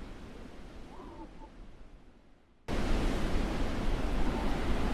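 Blizzard wind, a steady rushing noise with a faint wavering whistle, fading away over the first couple of seconds and then cutting back in suddenly at full strength a little past halfway.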